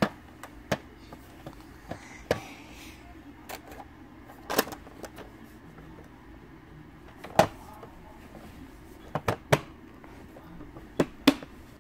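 Hard plastic clicks and knocks from a toy Mack car-hauler truck being handled, about nine short sharp ones spread out, with two close pairs in the second half, over a faint steady low hum.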